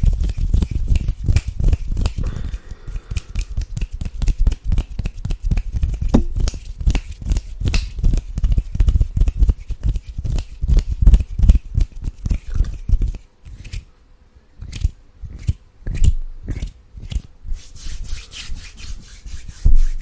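Close-miked ASMR mouth sounds: a rapid run of sharp clicks and smacks, several a second, thinning out to scattered clicks after about thirteen seconds.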